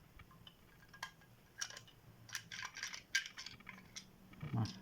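A screw being loosened and the parts of a flow switch's pneumatic timer being taken apart by hand: scattered small clicks and scrapes of metal and plastic, with one sharper click about three seconds in.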